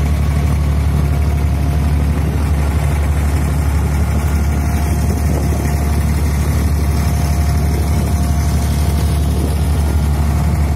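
Boat engine running steadily at a low, even drone, heard on board the passenger boat.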